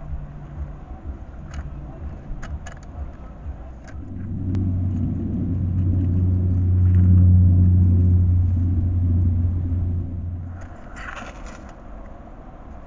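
A motor vehicle's low engine hum, steady in pitch, swells up about four seconds in and fades away some six seconds later. A short rustling noise follows near the end.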